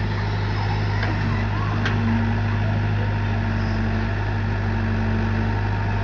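Excavator's diesel engine running steadily at constant speed, a low even drone.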